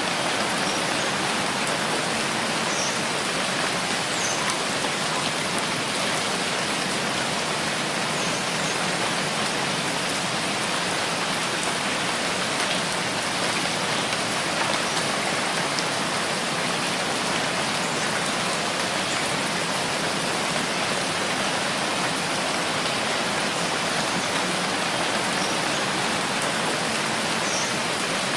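Steady rainfall: an even, unbroken hiss of rain.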